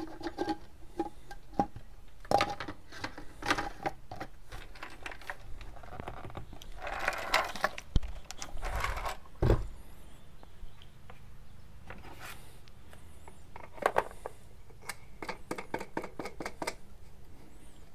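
Plastic drum of a Frankford Arsenal rotary case tumbler being handled: its lid screwed and clicked shut, then the drum set onto its motor base. A string of small clicks and knocks, with a heavier thump about nine and a half seconds in.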